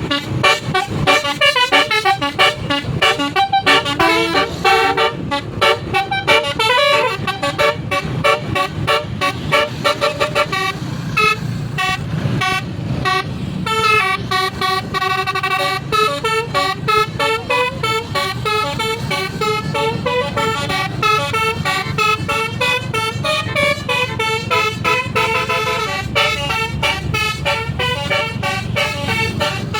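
Tour bus telolet horn, a set of several horn trumpets, playing a quick run of short pitched notes as a tune, the notes changing several times a second, over a steady low rumble.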